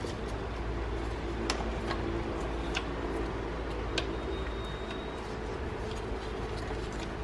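Faint handling noise of a rubber serpentine belt being fed around engine pulleys by gloved hands: a few light clicks and rubs over a steady low hum.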